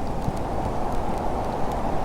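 Blizzard wind blowing steadily as a dense low rushing noise with a deep rumble, with faint scattered light ticks above it.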